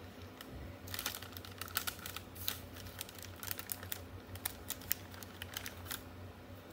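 Paper pastry bag crinkling and rustling as it is handled, a run of sharp crackles that starts about a second in and stops near the end.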